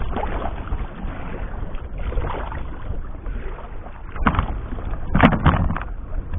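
Wind rumbling on the microphone, with a few short sharp knocks about four and five seconds in.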